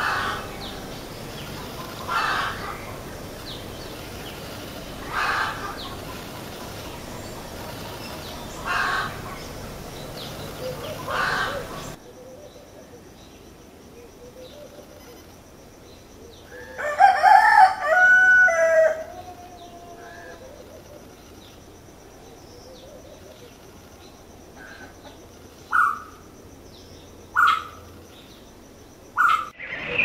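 Morning birdsong: a bird repeats a short call about every three seconds, then a rooster crows once, loudly, about halfway through, followed by three short bird calls near the end.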